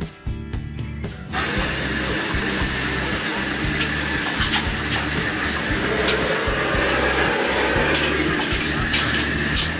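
Background guitar music, joined about a second in by the steady roar of a high-pressure gas wok burner at full flame. A few short metal clinks of a ladle against the wok sound over it.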